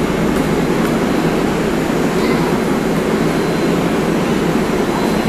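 MARTA rapid-transit train standing at an underground platform with its doors open: a steady, even hum from the idling train echoing in the station.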